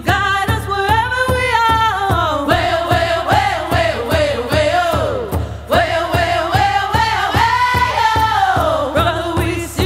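Background music: a voice singing long, sliding notes over a steady drum beat of about three strokes a second.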